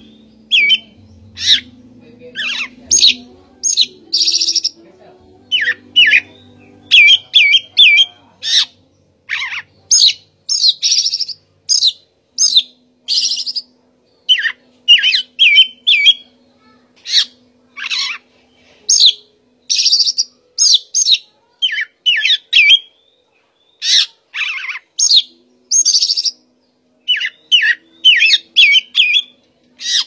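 Oriental magpie-robin (Copsychus saularis) singing: a long, loud run of clear whistled notes and phrases, many sliding up or down in pitch, some in quick groups of three or four, with short gaps between.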